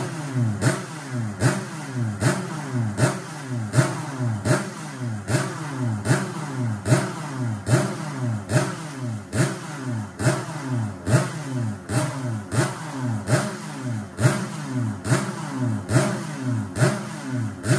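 Yamaha RD 135 single-cylinder two-stroke engine, converted to crankcase reed-valve induction and running on methanol, revved in quick repeated throttle blips, about three every two seconds, each rising sharply and falling back.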